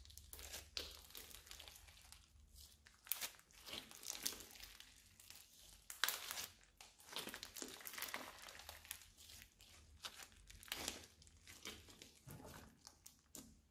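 Bead-filled blue slime being stretched, folded and squeezed by hand: irregular crackles and squishy pops as the slime and beads pull apart and press together, with a few louder bursts.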